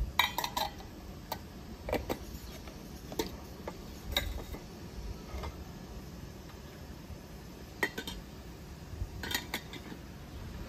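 Steel plates and dishes clinking and knocking as they are handled and set down on a wooden table, in scattered separate clinks with a quick cluster near the start and another about nine seconds in.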